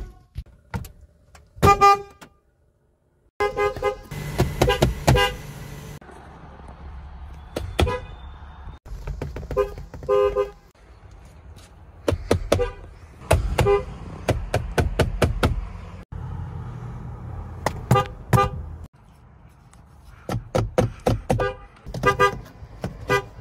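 Diesel locomotive air horns, several in turn, each sounding a series of short multi-note chord blasts over the low rumble of the diesel engine. The clips change abruptly, with a short gap near the start.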